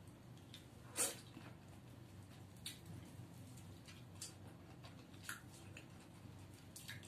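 Mouth sounds of eating drumstick (moringa) pods by hand: about five short, sharp sucking and chewing smacks a second or so apart, the loudest about a second in.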